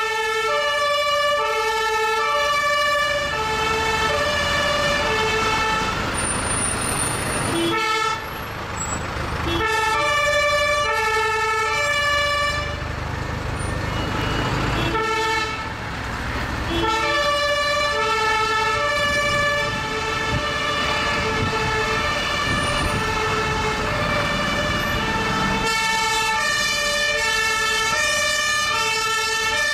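German two-tone fire-engine sirens (Martinshorn) from several vehicles sounding at once, each switching between a low and a high tone, out of step with one another. A fire truck's engine runs loud underneath as it drives past, fading out near the end.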